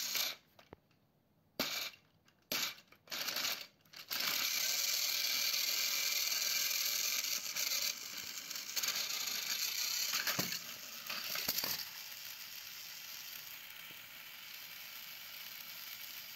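Battery-powered toy train motors whirring with a rattle of small gears and clicks as the trains run on plastic track; after a few short bursts the whir becomes steady about four seconds in. Two sharp knocks come around ten and twelve seconds in, after which a quieter steady whir carries on.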